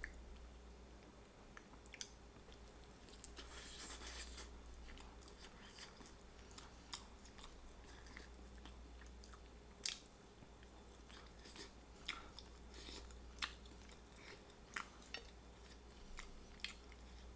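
A person chewing and biting into barbecue rotisserie chicken close to the microphone, with scattered sharp wet mouth clicks and short crunchy bursts.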